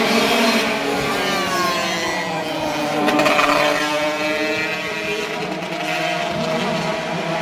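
Racing vỏ lãi long-tail boat engines running at high revs. The pitch rises a little after the first second and falls around four seconds in.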